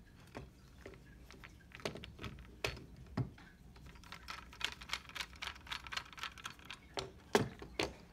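Clicks and rattles of the small plastic and metal parts of a Triton ATM's receipt printer being handled and fitted back together. Scattered single clicks give way to a quick run of rapid rattling clicks in the middle, and there are two louder clicks near the end.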